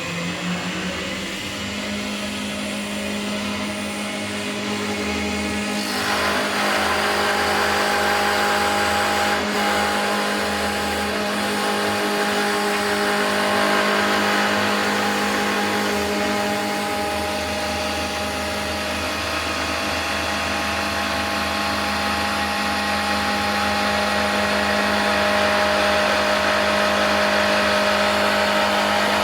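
Wood lathe on a 3.7 kW frequency-drive motor, running with a steady hum after a short rise in pitch as it speeds up. From about six seconds in, a loud, steady hiss joins it, typical of the tool cutting into the spinning wood.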